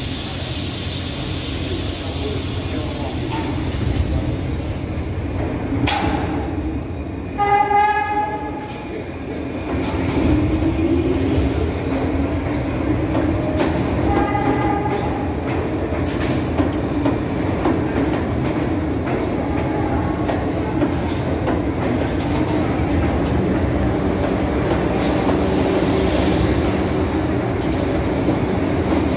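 New York City Subway train at a station platform. A chime sounds about eight seconds in. The train then pulls out, its motors whining up in pitch as it starts, and rolls steadily past with wheels rumbling on the rails.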